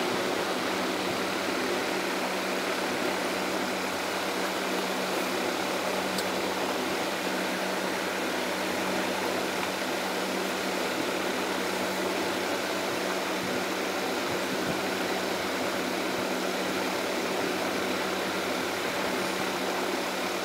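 Steady background hiss with a low, even hum underneath, unchanging throughout.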